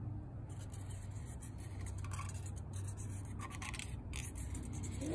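Marker pen scratching and rubbing on sheet steel in short repeated strokes as circles are traced around a plastic circle template, over a steady low hum.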